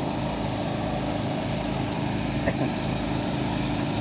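Engine of a floating suction gold dredge running steadily at a constant speed, with no change in pitch or level.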